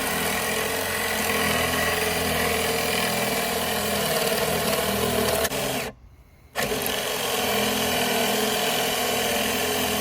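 Electric drill running steadily, boring a hole with a Forstner bit. The sound cuts out for about half a second around six seconds in, then the drill runs on.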